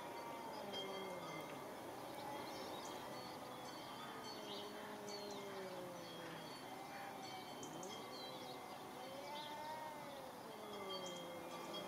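Two domestic cats yowling at each other in a standoff, long drawn-out wails that rise and fall slowly in pitch, overlapping at times: threat calls ahead of a fight. Small birds chirp faintly in the background.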